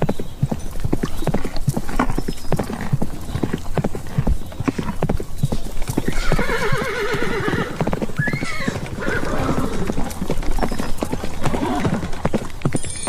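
Horse hooves galloping, a fast stream of knocks, with a horse whinnying about halfway through in a long, quavering call, followed by a shorter call.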